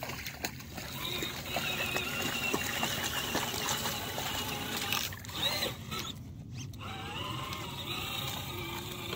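Small electric motor and drivetrain of a Redcat Gen8 V2 RC rock crawler whining faintly as it creeps over loose gravel and stones, with light patters and clicks, along with water splashing and trickling at the shoreline.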